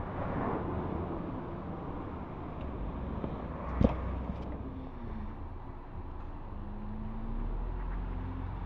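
Outdoor street ambience with steady distant traffic noise, a low vehicle hum rising near the end. A single sharp knock about four seconds in.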